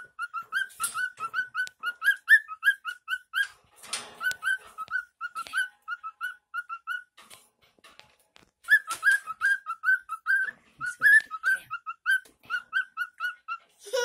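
Cockatiel clicking: a fast run of short whistled chirps, about five a second, that stops for about a second and a half midway and then starts again, with a few sharp clicks among them.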